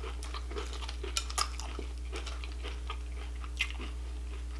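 Metal spoon clinking and scraping against a glass bowl of cereal and milk as a spoonful is scooped up, with two sharp clinks just over a second in and another about three and a half seconds in. Soft chewing in between.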